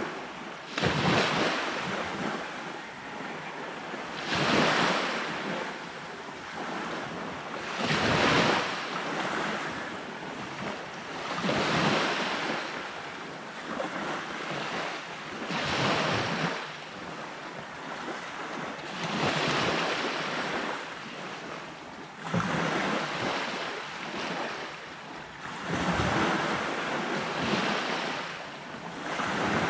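Sea waves breaking on a sandy beach, a surge every three to four seconds with a steady wash of surf between them.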